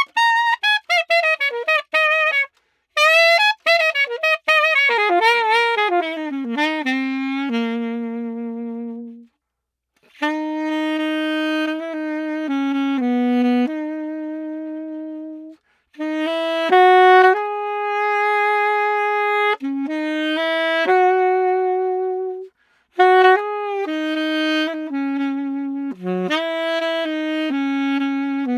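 Yamaha 62 saxophone fitted with a Selmer Action 2 gold neck, played solo: a quick falling run of short notes, then slower phrases of held notes with short breaks between them.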